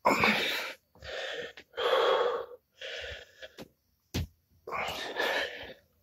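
A man breathing hard with exertion during push-ups: five heavy breaths, each under a second long, plus a short sharp click a little after four seconds in.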